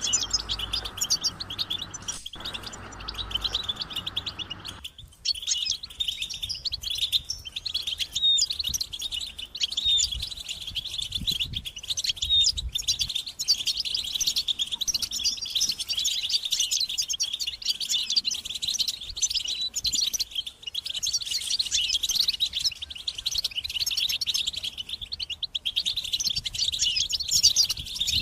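European goldfinches twittering together in a dense, unbroken chatter of rapid high chirps, the excited group calls used to stir male goldfinches into song. A low background hiss under the birds cuts off about five seconds in.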